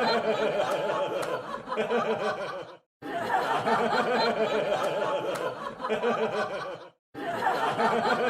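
A crowd laughing together: a canned laugh track of many voices, about four seconds long, repeated with a brief dead-silent break between repeats twice.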